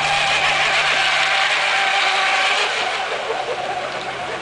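Radio-controlled hydroplane with an 8XL brushless electric motor running flat out: a high-pitched whine from motor and propeller mixed with the hiss of its spray. It is loudest in the first few seconds and eases off toward the end.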